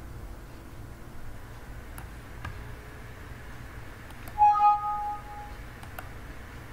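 Windows alert chime, a short two-tone ding about four seconds in, signalling a dialog box popping up. Faint mouse clicks come a few times around it over a steady low hum.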